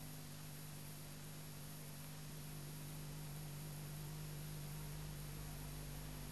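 Steady tape hiss with a low, even electrical hum from a worn VHS copy, and no other sound.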